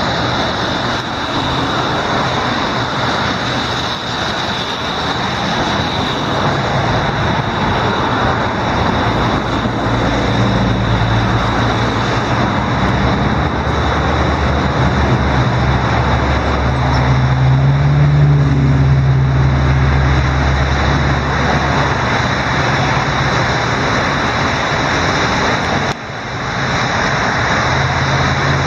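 Swollen Bow River floodwater rushing past in a loud, steady wash of noise. A low engine hum rises out of it in the middle for about ten seconds, climbing a little in pitch partway through, as a motor vehicle goes by.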